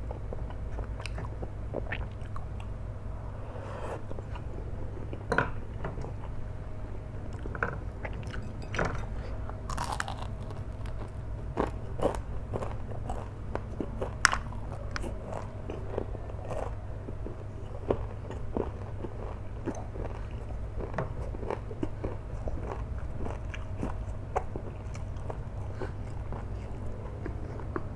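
Close-up chewing and biting of flat rice noodles (kwetiau) in hot sauce, with many short wet clicks and smacks. A steady low hum runs underneath.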